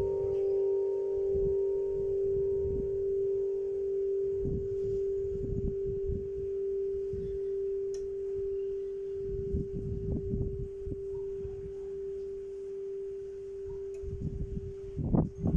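A church bell of a small electric carillon (Paccard, 2007) ringing out after a strike: one low, pure note that sustains and slowly fades, its higher overtones dying away within the first couple of seconds. Low rumbling bursts come and go several times, strongest near the end.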